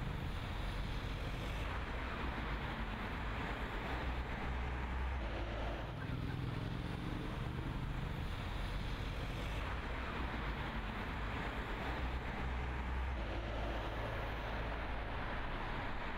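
City street traffic: cars and vans driving past in a steady stream of road noise and engine rumble, swelling as vehicles go by.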